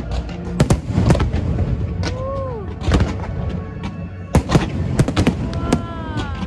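Aerial fireworks bursting in a rapid, irregular run of sharp bangs and crackles, with a few pitched gliding tones in between.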